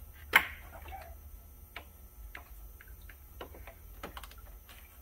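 A sharp plastic click about half a second in, then scattered light ticks and taps, as a radiator and its plastic shield are worked loose from the AC condenser by hand.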